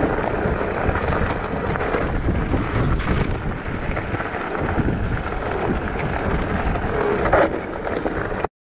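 Wind buffeting the camera microphone over the rumble of mountain-bike tyres rolling down a gravel track. The sound cuts off suddenly near the end.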